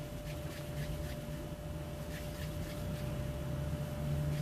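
Soft, irregular rubbing and pats of hands pinching off and rolling soft cookie dough into balls, over a steady low hum with a faint steady high tone.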